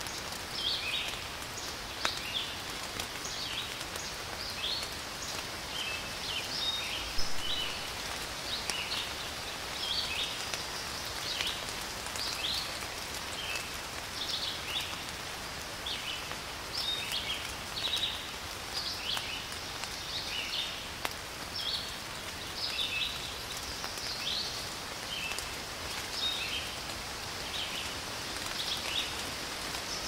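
Steady rain with scattered drop impacts, and birds singing over it in many short, high chirps throughout.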